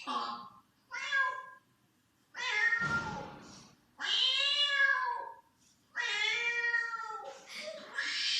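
Meowing: a string of about six meows, each around a second long, rising then falling in pitch, with short pauses between them.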